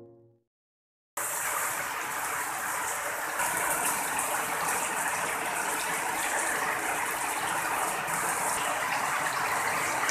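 Heavy rain pouring onto standing water, a steady loud hiss that starts abruptly about a second in.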